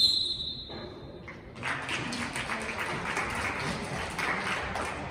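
A referee's whistle gives one long blast, then clapping breaks out about a second and a half later and carries on as applause.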